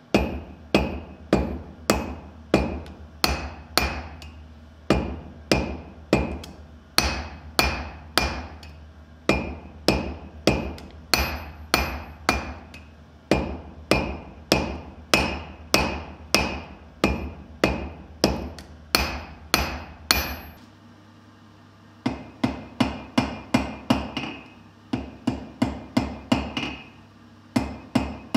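A blacksmith's hammer strikes red-hot steel on an anvil in a steady rhythm, about two blows a second, each with a short metallic ring over a low hum. About two-thirds of the way through the blows stop for a moment, then resume as a quicker run of lighter strikes.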